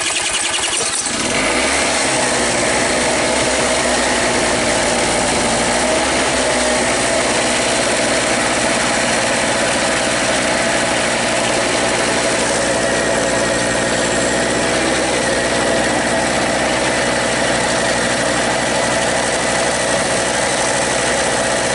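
Harbor Freight Storm Cat two-stroke portable generator spun over by a cordless drill on its flywheel bolt. The engine catches about a second in and settles into a steady run.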